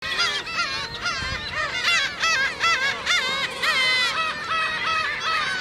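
A colony of black-tailed gulls calling, many birds at once, their calls overlapping without pause.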